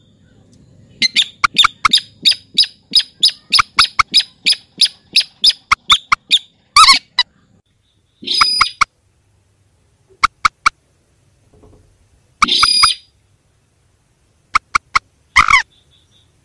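Calls of rails (mandar and sintar) from a bird-lure recording. A rapid series of short, sharp notes, about two to three a second, runs for around five seconds. Then come a few louder, harsher single calls and short clusters of clicks, spaced a second or more apart.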